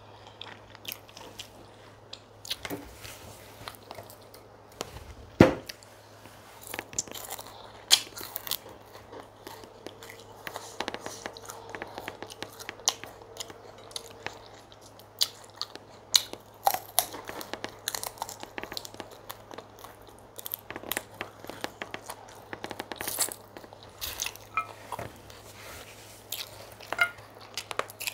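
Close-miked mukbang eating of chicken pepper soup and fufu: irregular wet chewing, biting and crunchy bites with sharp mouth clicks, two louder snaps about five and eight seconds in. A faint steady low hum runs underneath.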